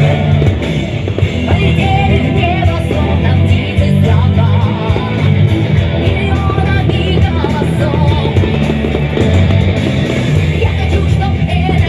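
Rock song with distorted electric guitar and male singing.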